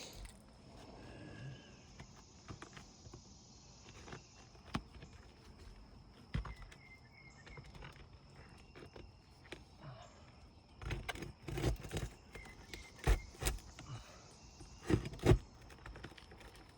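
Irregular knocks and taps from tools and hands working on asphalt roof shingles. A few single taps come first, then clusters of sharper knocks in the last six seconds.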